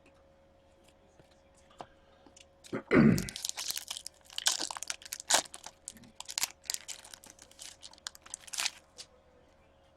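A thump about three seconds in, then several seconds of crinkling and tearing as the foil wrapper of a hockey card pack is ripped open and handled.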